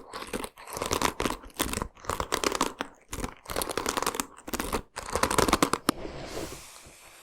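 Crinkling and crunching of handled material close to the microphone, in a run of short crackly bursts that stop about six seconds in.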